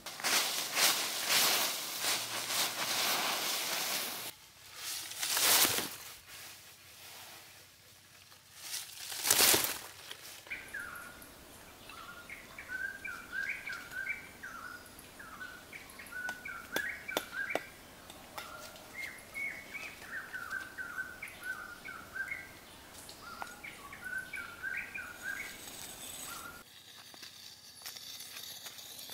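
Dry fallen leaves rustling and crackling as they are gathered by hand for the first few seconds, then two louder sweeps of leaves. After that a bird calls over and over in short chirping phrases, with a few faint taps around the middle.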